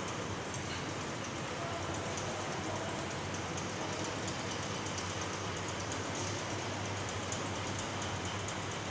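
Steady indoor background noise: an even hiss over a constant low hum, with faint light ticks throughout.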